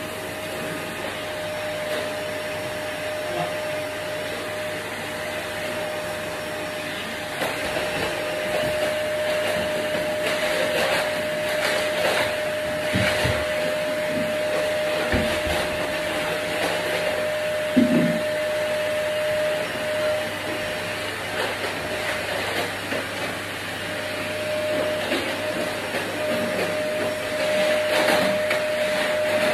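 Vacuum cleaner running steadily with a constant whine, and a few short knocks and bumps as it is worked around.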